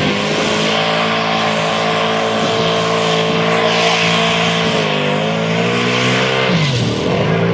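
Turbocharged Chevrolet pickup's engine held at high revs under full load as it drags a pulling sled, tyres spinning and hissing on the dirt. The revs hold steady, sag briefly, then drop sharply near the end and pick up again.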